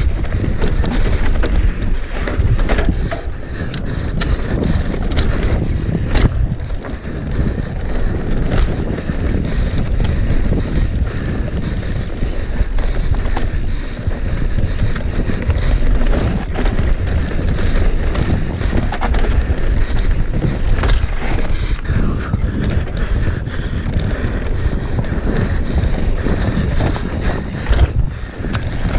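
Mountain bike ridden fast down a rooty downhill trail: steady wind rushing over the microphone, with frequent knocks and rattles as the bike hits roots and bumps.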